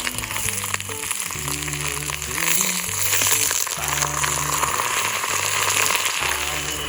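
Food sizzling as it fries, a dense steady hiss that grows louder a couple of seconds in, over background music.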